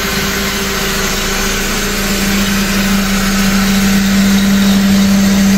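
Mercedes-Benz M271 four-cylinder engine idling steadily just after its timing chain kit was replaced, with a steady drone and getting slightly louder near the end. The running is quite low.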